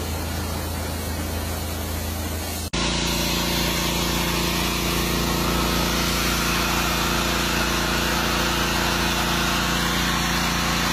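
High-pressure jet washer running: a steady machine drone under the hiss of water spraying. About three seconds in it changes abruptly to a louder, fuller drone.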